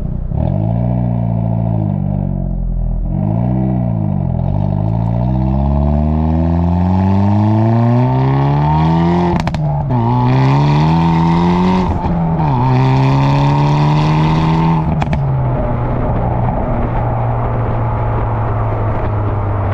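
Hyundai Veloster N's 2.0-litre turbocharged four-cylinder through its stock exhaust in Sport+ mode. It revs up and down twice, then pulls hard in three rising sweeps, with a sudden drop in pitch at each upshift. About fifteen seconds in it lifts off the throttle with exhaust pops and crackles and settles to a steady lower drone.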